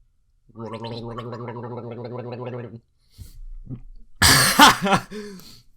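A man gargling in his throat, a steady buzzing tone that wavers rapidly for a little over two seconds. About four seconds in comes a loud, harsh throaty burst of breath and voice.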